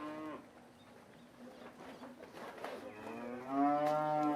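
Dairy cows mooing: a short call at the start, then one long, steady moo over the last second and a half.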